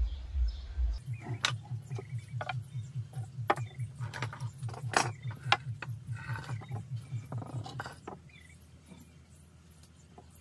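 Wooden shim blocks and a clamp being handled and set against a soaked, warped timber to bend it straight: a run of sharp clicks and knocks, over a low pulsing hum at about five beats a second. It goes quieter near the end.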